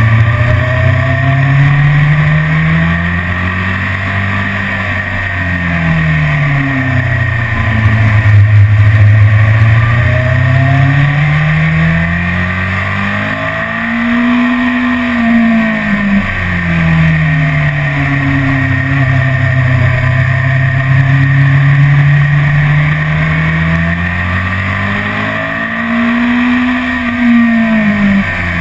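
BMW S1000RR's inline-four engine heard from the rider's seat at track speed, its pitch climbing on the throttle and falling away again in long sweeps, twice peaking high. A steady rush of wind runs underneath.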